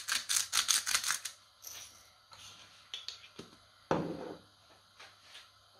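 Salt being shaken into the pan, a rapid rattle of about seven shakes a second that stops after about a second, followed by a few light clicks and a single dull knock about four seconds in.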